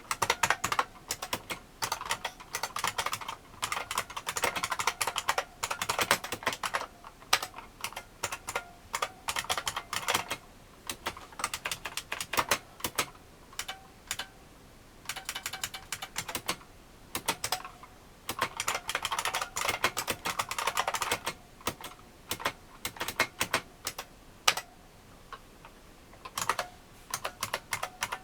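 A 1986 IBM Model M 1390120 buckling spring keyboard being typed on: fast runs of sharp key clicks in bursts of a few seconds, broken by brief pauses.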